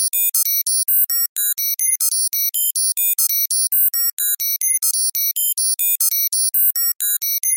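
Computer data-processing sound effect: a rapid, unbroken stream of short electronic beeps that jump randomly between high pitches, about six to eight a second.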